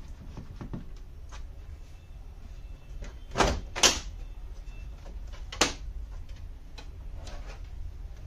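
Knocks and clunks from a flat-screen TV set being handled as it is opened up. Two loud knocks come close together about three and a half seconds in and a sharper one a couple of seconds later, with lighter clicks between, over a low steady hum.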